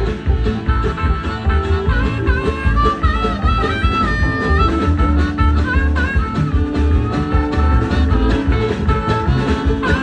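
String band playing an instrumental break of an upbeat swing-style song: a lead instrument plays wavering, bending notes over rhythm guitar and a pulsing bass.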